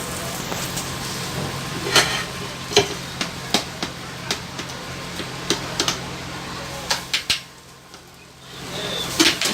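Metal spatula knocking and scraping irregularly on a hot dosa griddle over a steady sizzle of frying food.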